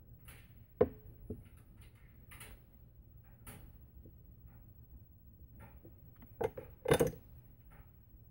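Handling sounds of crafting: a hot glue gun and a small painted pot being picked up, turned and set down on a countertop, giving a few sharp knocks, two about a second in and a louder pair near the end, with soft rustling between.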